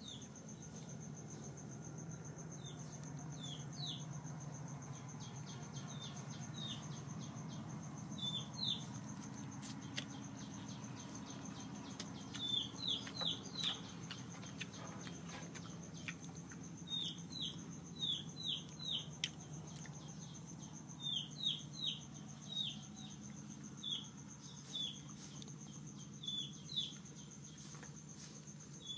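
Small birds chirping in quick clusters of two to four short falling notes, repeated every second or two, over a steady high insect drone.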